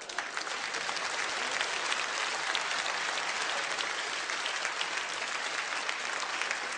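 A large audience applauding, a dense patter of many hands clapping that eases off slightly near the end.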